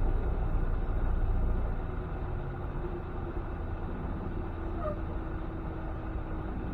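Semi-truck cab noise: the diesel engine running with a steady low rumble that eases a little quieter about two seconds in, with a faint steady hum underneath.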